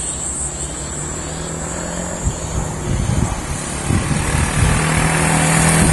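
Motorcycle engine running as the bike rides toward the listener along a road, growing louder toward the end.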